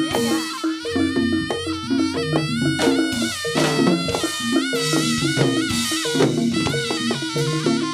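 Live Jaranan horse-dance music: drums and percussion over a repeating bass pattern, with a wavering lead melody line.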